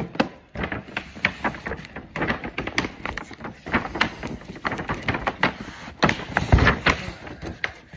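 Paper shopping bag crinkling and rustling in quick, irregular crackles as a box is pulled out of it, with a dull thump about six and a half seconds in.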